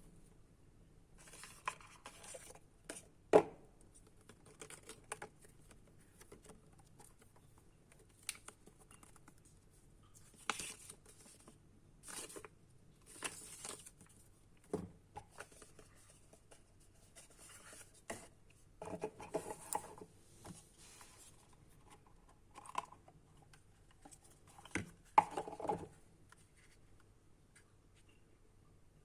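Handling noises: scattered clicks, taps, scrapes and rustles from hands working with a small device, with a sharp click about three seconds in and another about 25 seconds in.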